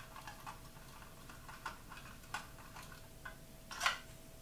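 Small plastic clicks and taps as the battery cover of a telescope motor drive is worked loose and lifted off, with one louder click just before the end. A faint steady tone runs underneath.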